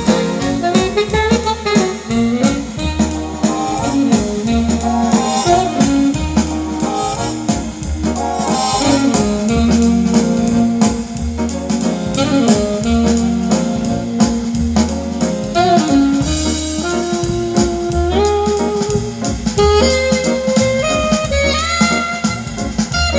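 Music with a melody line over a steady bass beat of about one pulse a second, played back through a pair of Bose 101 MMG speakers being tested for sound quality.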